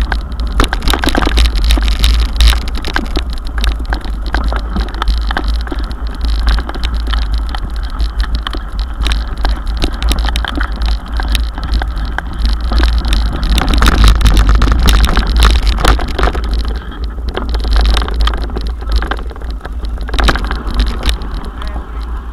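Mountain bike ridden over a rough grassy track and gravel road, heard through a camera mounted on the handlebar: a constant low rumble with frequent rattling knocks as the bike jolts over bumps.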